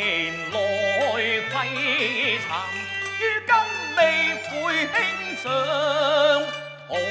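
Cantonese opera music: a melody with wide vibrato over held low notes that change every second or so.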